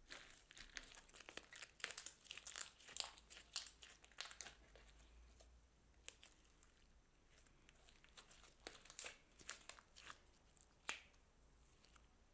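Glassy clear slime being pressed, folded and squished by hand, giving bursts of quick crackling pops and clicks. The crackles bunch up in the first few seconds and again about two thirds of the way through, with a quieter stretch between.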